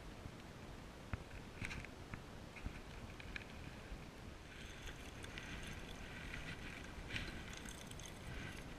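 Spinning reel being wound in against a hooked fish, with faint clicks over a low rumble of wind and water at the kayak. From about halfway in, a hissing, rattling sound comes and goes, and near the end the fish splashes at the surface.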